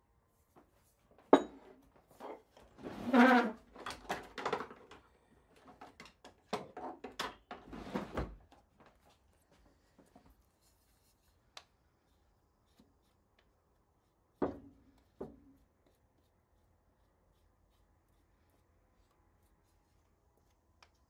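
Kitchen handling sounds: scattered knocks, clatter and scraping, busiest over the first eight seconds, then two knocks about two thirds of the way through.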